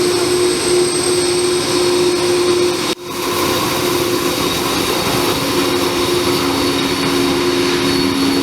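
Boeing 767 jet engines running: a steady whine over a broad rushing noise. It breaks off abruptly about three seconds in and resumes at once, with a second, lower whine joining later.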